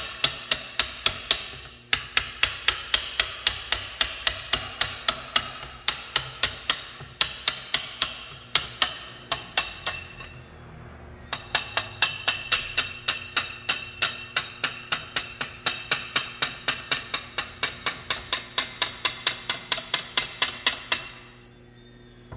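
Fast, even tapping with a ringing tone, about four or five strikes a second, pausing briefly every few seconds and once for about a second near the middle.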